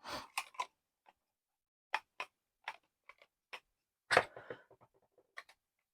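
Scattered light clicks and knocks as the parts of a cordless car vacuum, its filter and attachments, are handled and pushed together, with a short run of clicks about four seconds in.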